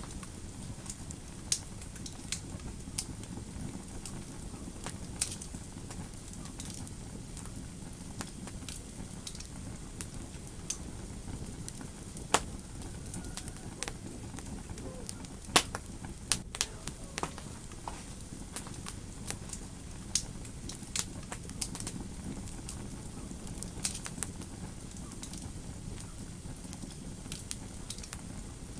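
Wood fire in a fireplace crackling: irregular sharp pops and snaps over a steady low rumble of flame, with a few louder pops about twelve and fifteen seconds in.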